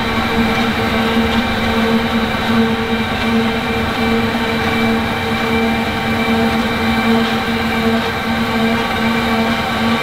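Mammoth 800 RC Genie concrete floor grinder running steadily, its grinding heads turning on wet concrete. It makes a loud, constant hum with a steady tone that does not change.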